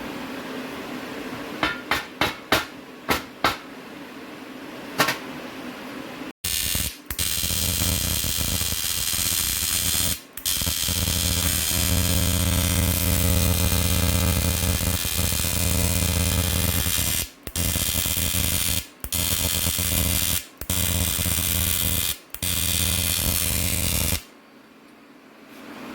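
A few sharp metallic taps, then an electric tool on the rim weld runs with a steady buzzing hum, stopping briefly about five times before cutting off near the end; this is the work of cleaning contamination out of the weld.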